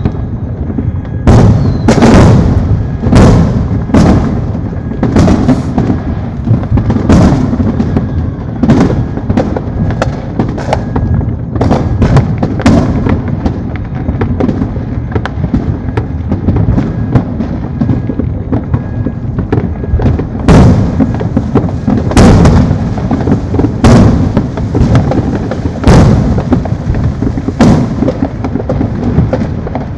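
Many fireworks going off without pause: sharp booms and pops about once a second over a continuous rumble of more distant bursts, loudest near the start and again in the last third.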